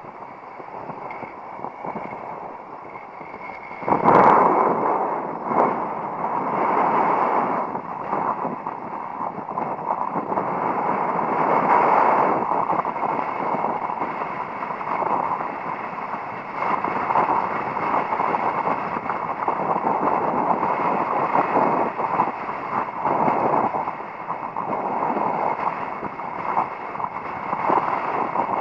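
Strong wind buffeting the microphone during a kitesurfing run, mixed with rushing water, swelling and dropping unevenly, with a sudden loud burst about four seconds in.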